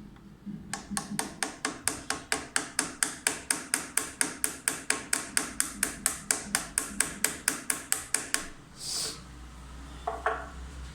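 Rapid, even tapping, about five sharp strikes a second for some eight seconds, then stopping, with a single clack near the end.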